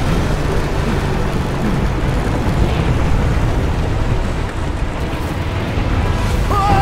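Animated sound effects of a motorcycle ride through a volcanic eruption: a steady, loud low rumble, with a short wavering higher tone near the end.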